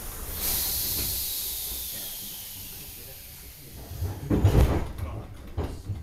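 Compressed air hissing from the DR1AMv diesel railcar's pneumatic system, loud at first and fading away over about three seconds. About four seconds in comes a cluster of heavy thumps and knocks.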